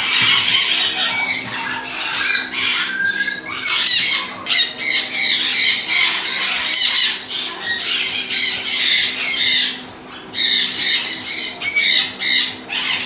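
Parrots squawking and screeching over and over, loud short calls coming thick and fast with a brief lull about ten seconds in, over a faint steady low hum.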